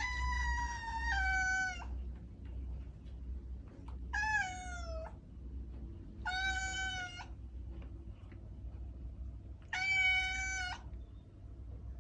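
Domestic cat yowling in four drawn-out calls of about a second each, a few seconds apart, the first two falling in pitch: the caterwauling of cats mating. A steady low hum runs underneath.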